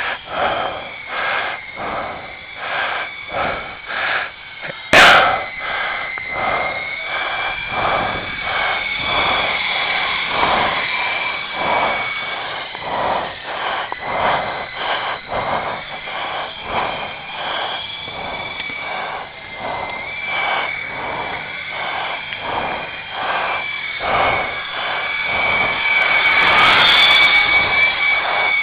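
Syma S033G RC helicopter's small electric motors whining in flight, the pitch wavering up and down as the throttle changes, over the buffeting of a light breeze on the microphone. There is a sharp click about five seconds in, and the whine gets louder near the end.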